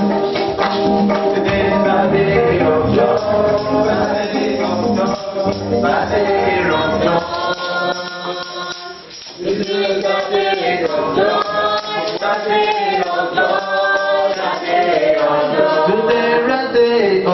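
Choir singing a gospel song with tambourine and band accompaniment. The deep bass drops out about eight seconds in, and after a short lull the singing carries on.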